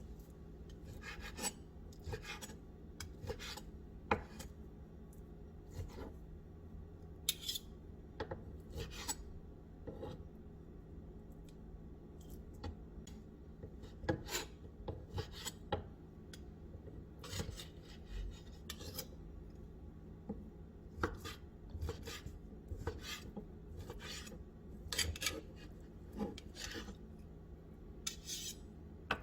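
Food being prepared by hand: irregular rasping, scraping and knocking strokes, some in quick runs, over a steady low hum.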